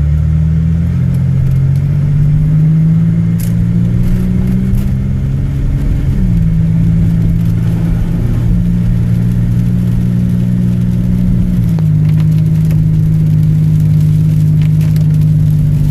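Car engine and road drone heard inside the cabin while driving. The engine note slowly rises, then drops about six seconds in and again near twelve seconds, as with gear changes.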